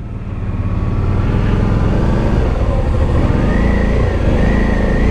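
Motorcycle engine pulling at low speed up a steep mountain road, its note building over the first second and then holding steady. A thin, wavering high whine joins about halfway through.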